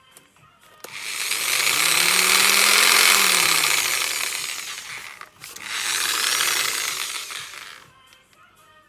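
Bosch 650 W jigsaw run twice, its motor speeding up and then slowing back down each time, using its variable speed control.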